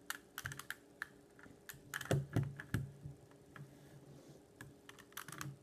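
Irregular quick clicks and taps, some single and some in fast clusters of three or four, with short pauses between.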